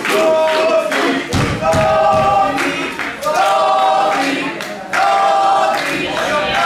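Crowd chanting in unison: the same sung phrase of held notes repeated over and over. A low thud about a second and a half in.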